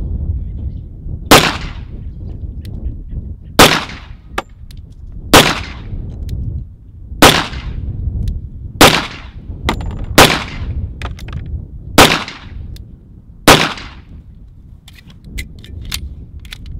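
Eight pistol shots fired one at a time, about one and a half to two seconds apart, each a sharp crack with a short ring-out. A few faint clicks follow near the end.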